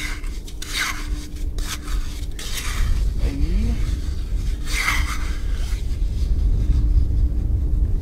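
A plastic shovel and a hand scraping and digging into wet beach sand, with rough scrapes every second or two over a low, steady rumble.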